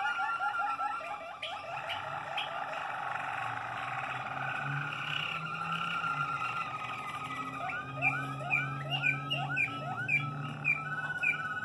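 Malinois Waterslager canaries singing: a fast trill of repeated notes, then a long held tone, and about eight seconds in a run of sharp, separate notes about three or four a second.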